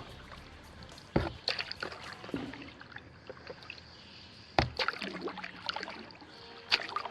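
Kayak paddle strokes in the water, with splashing and dripping between strokes. Three sharp knocks, about a second in, midway and near the end, are the loudest sounds, typical of the paddle striking the kayak's hull.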